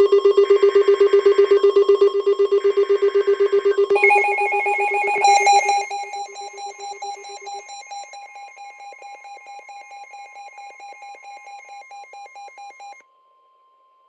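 Emergency Alert System alert tones. Two buzzy digital header data bursts in the first few seconds play over a loud, rapidly pulsing ringing alarm tone, which steps up in pitch about four seconds in and then fades. Beneath it a steady single tone, like the weather-radio warning alarm, holds until it cuts off near the end.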